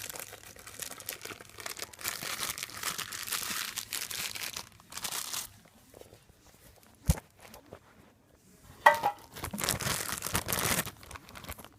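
Packaging crinkling and tearing as a mystery item from a subscription box is unwrapped, in two long stretches of rustling with a single sharp knock in the quiet gap between them.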